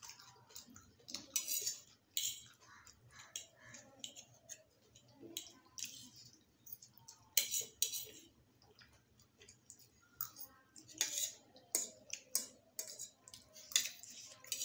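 Metal forks scraping and clinking against plates as noodles are picked up and eaten, in short, irregular bursts.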